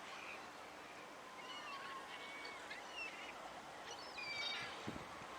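Birds calling outdoors: a string of short, pitch-bending calls over steady background noise, with a low thump near the end.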